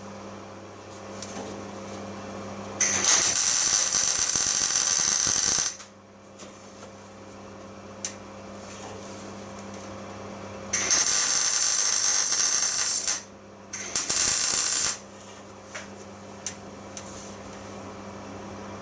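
A power tool run in three bursts: a long one, then a second, then a short one right after it, over a steady low hum.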